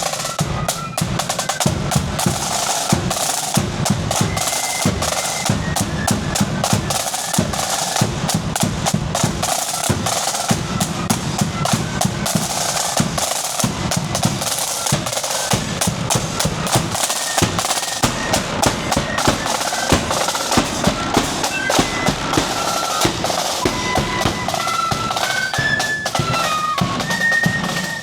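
A marching flute band plays with rapid snare drum rolls over a heavy bass drum beat. A high flute melody comes through more clearly in the last few seconds.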